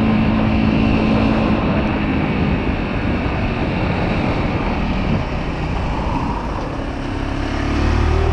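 125cc motorcycle engine running under way, mixed with wind and road noise. The engine note holds steady at first, eases off through the middle, then rises again near the end as the throttle opens.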